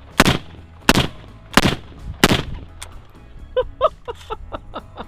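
Four suppressed rifle shots from a Palmetto State Armory KS47, a 7.62×39 AR-pattern rifle fitted with an AAC 762-SD suppressor. They come in a steady string about 0.7 s apart, all in the first half; a voice follows near the end.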